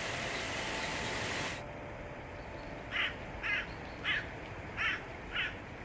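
A crow cawing five times in a quick series, short harsh calls about half a second apart, after a steady hiss that cuts off abruptly.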